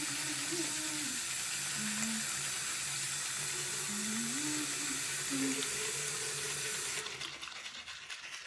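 Tap water running steadily into a sink, cutting off about seven seconds in and leaving the quick scrubbing strokes of a manual toothbrush on teeth with braces.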